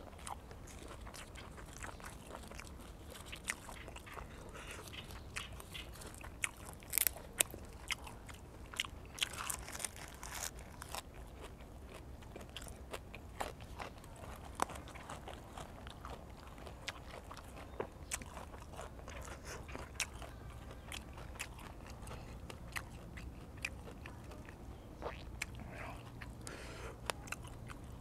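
A person chewing mouthfuls of fresh raw leafy greens close to the microphone: irregular crisp crunches and wet chewing, loudest about seven seconds in.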